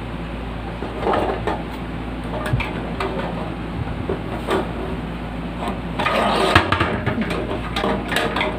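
Scattered clicks and knocks of a plastic box fan being handled and taken apart, with a denser rattling, rustling stretch about six seconds in, over a steady low hum.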